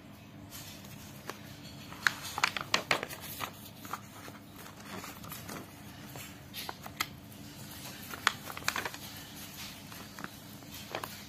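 Paper pages of a book being turned and pressed flat by hand. Crisp rustling and crinkling comes in bursts about two seconds in and again about eight seconds in.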